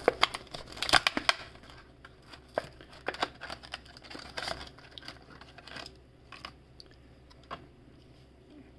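Hot Wheels blister pack being opened: plastic and cardboard crinkling and tearing in bursts of crackles, thinning out to a few isolated clicks after about six seconds.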